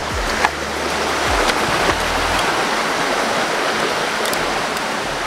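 Steady rush of running water, with a couple of faint clicks in the first two seconds.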